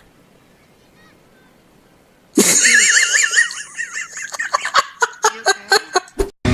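A horse whinnying: after two quiet seconds a loud, warbling neigh starts suddenly and breaks into a run of quick pulses that die away near the end.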